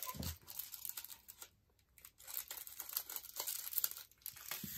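Small plastic packets of diamond-painting drills crinkling as hands handle them, in uneven bursts with a short pause about a second and a half in.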